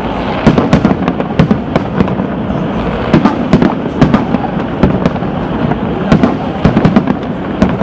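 Fireworks display: aerial shells bursting in a dense, irregular string of loud bangs, several a second.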